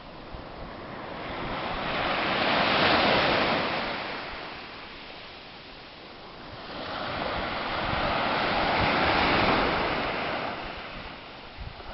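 Small sea waves breaking and washing up a sandy beach. The surf swells and fades twice, loudest about three seconds in and again about nine seconds in.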